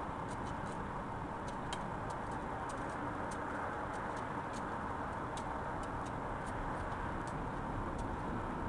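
Backhoe loader's diesel engine running steadily while it digs, with many small, sharp clicks scattered irregularly through it.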